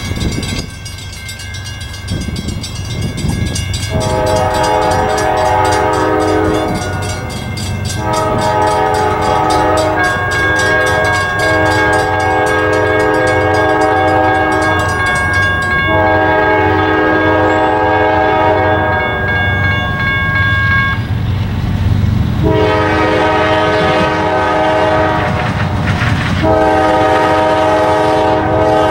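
CSX diesel freight locomotive sounding its multi-tone air horn for a grade crossing in a series of long blasts with short breaks, starting about four seconds in, the last still sounding at the end. Underneath, the crossing signal's bell dings rapidly through the first half, over the locomotive's steady low engine rumble.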